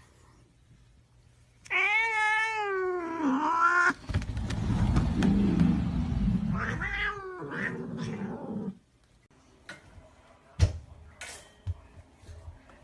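A cat yowling: a long, wavering meow starting about two seconds in, then a rougher, noisier stretch with another rising cry, stopping about nine seconds in. A sharp click follows near the end.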